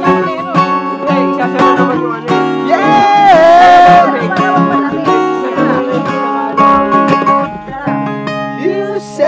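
Acoustic guitar playing an instrumental passage of a song, a run of plucked notes and chords. About three seconds in, a louder held note slides in pitch.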